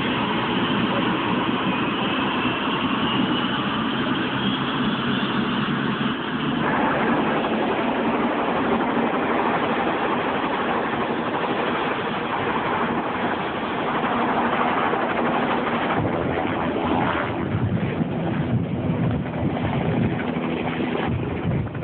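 Loud, steady engine and vehicle noise, with a thin whine that climbs slowly in pitch over the first several seconds.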